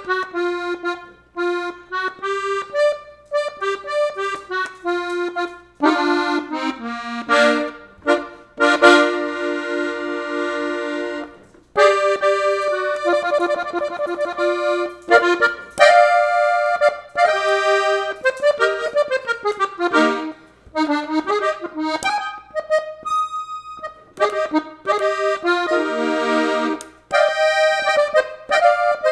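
Three-row diatonic button accordion in F, played solo: a norteño-style melody in B-flat, with quick runs of notes broken by several held chords.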